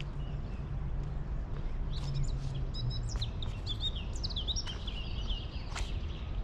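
A songbird chirping and singing: a quick run of short high notes starting about two seconds in, over a steady low background rumble.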